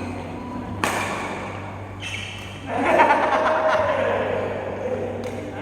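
A single sharp click about a second in, typical of pool balls striking, ringing in a large hall. About two seconds later a loud, drawn-out sound starts and falls slowly in pitch.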